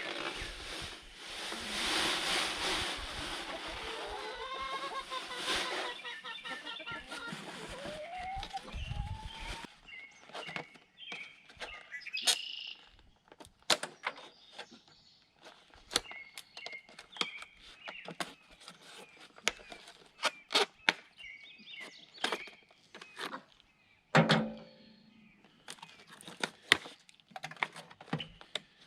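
Chickens clucking for the first several seconds, then a long run of separate sharp clicks and knocks with short quiet gaps between them.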